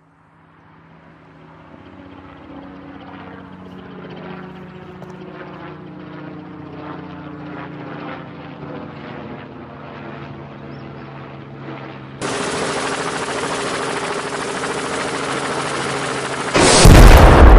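Military helicopter approaching, its rotor chop growing steadily louder. About twelve seconds in, a much louder rushing noise cuts in abruptly, and near the end a sudden, very loud blast breaks out.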